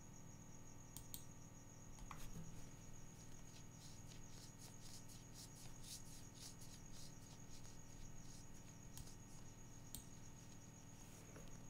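Faint computer mouse clicks, scattered and then in a quicker run through the middle, over a quiet room with a steady faint high whine.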